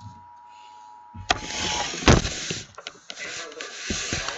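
A handheld camera being turned around: rubbing and handling noise, starting about a second in, with several sharp knocks. Underneath, the Emergency Alert System's two-tone attention signal from the TV plays faintly and stops a little under two seconds in.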